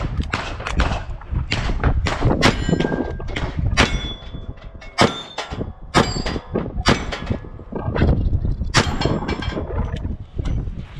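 A revolver firing a fast string of shots during a USPSA stage. Some shots are followed by the high ringing of steel targets being hit.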